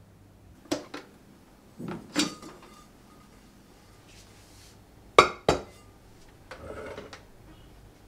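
Kitchen handling sounds: a metal pot and dishes knocking and clinking against a countertop, a few scattered clinks, then two sharp knocks close together about five seconds in, followed by a short scrape.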